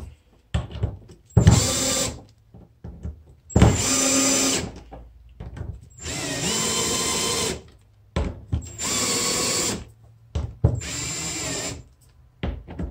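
Ryobi cordless drill driving screws through a plastic cutting-board mounting plate into a kayak hull, in five short runs of one to two seconds with pauses between. Each screw is run down almost, but not quite, all the way, to avoid stripping it in the plastic.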